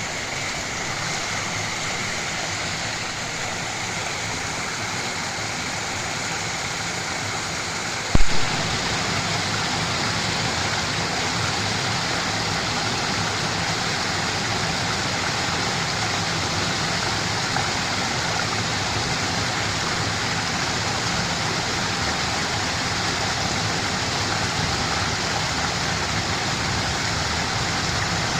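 Small river rushing steadily in the rain, a constant even water noise. A brief thump about eight seconds in, after which the rush is slightly louder.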